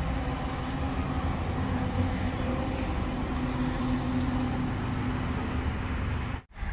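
A steady low mechanical drone with a faint held tone, cutting off suddenly near the end.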